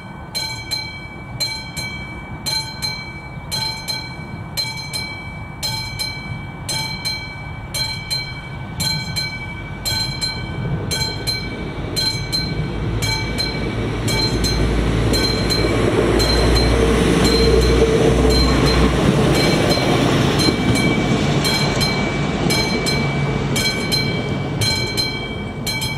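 Classic mechanical bell of an AŽD 71 level-crossing warning signal ringing steadily, about one and a half strokes a second. Under it a ČD class 844 RegioShark diesel railcar approaches and passes, its rumble building, loudest a little past the middle, then fading near the end while the bell keeps ringing.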